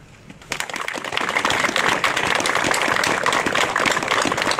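A crowd of people applauding, breaking out about half a second in and holding steady.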